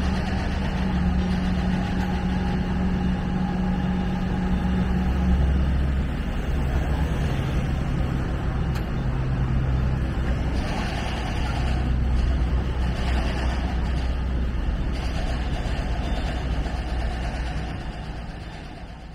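City road traffic: a steady rumble of vehicle engines going by, fading out near the end.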